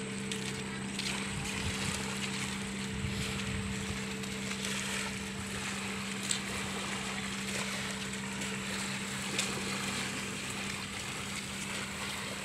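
Small boat engine running steadily at an even hum, with two brief clicks about six and nine seconds in.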